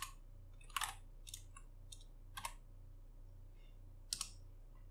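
Computer keyboard being typed on: about seven separate keystrokes, unevenly spaced, the last a little after four seconds in, over a faint steady low hum.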